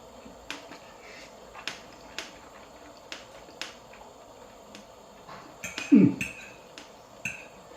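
A person eating a bite of roasted cauliflower: scattered sharp, wet mouth clicks and smacks while chewing. About six seconds in comes one short, loud vocal hum that falls in pitch.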